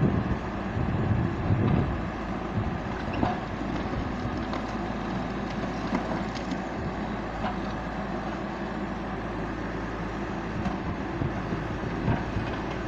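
Mecalac MWR wheeled excavator working, its diesel engine and hydraulics running steadily, with scattered cracks and knocks of concrete slabs being broken and dropped. The crunching is loudest in the first two seconds.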